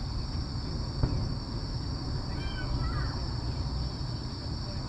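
A lull in a fireworks display: a low, steady outdoor rumble with one faint firework thump about a second in, over a steady high-pitched buzz.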